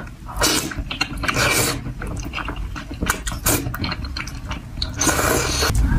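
Close-up mouth sounds of a person slurping and chewing saucy noodles: wet sucking slurps at irregular intervals, getting denser and louder in the last second.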